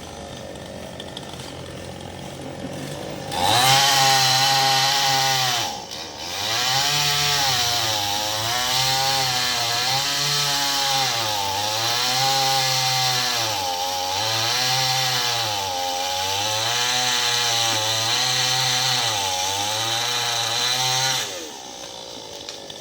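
A Maestro two-stroke chainsaw revs up about three seconds in and cuts through branch wood. Its engine pitch dips and recovers over and over as it cuts. Just before the end it drops back sharply.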